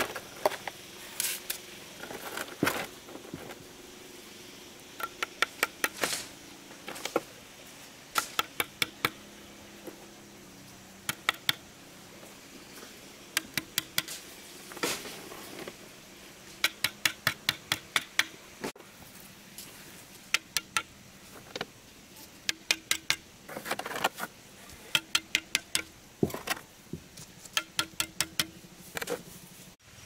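Steel mason's trowel working wet cement against stone: quick runs of sharp metallic taps and clinks, with a few longer scrapes as mortar is scooped and smoothed.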